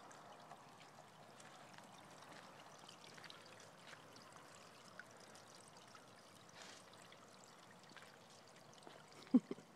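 Small pot fountain trickling steadily, with faint light rustles and clicks over it. A short loud sound breaks in near the end.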